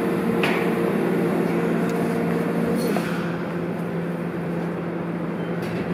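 Berlin U-Bahn F92 car standing at a station with its doors open, its onboard equipment giving a steady multi-tone hum. There is a click about half a second in, and the higher tones stop about three seconds in while a low hum carries on.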